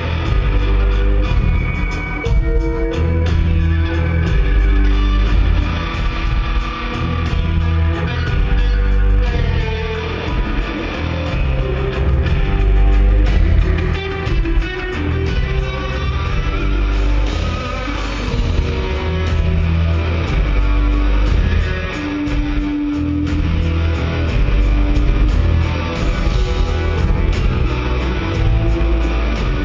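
Live rock band playing loud: electric guitar and bass over drums and keyboards, with a heavy, pulsing low end.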